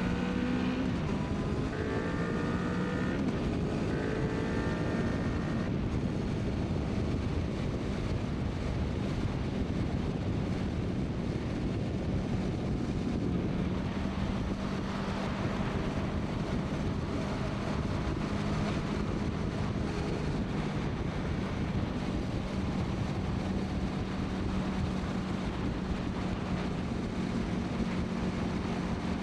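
2014 Honda VFR800F's V4 engine through its full exhaust, on the move: revs climbing over the first few seconds, then a steady drone, with wind noise over the microphone.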